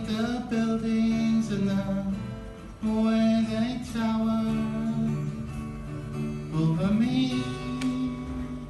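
A woman singing long held notes over acoustic guitar, the closing lines of a pop song sung live; the voice slides up to a new held note near the end.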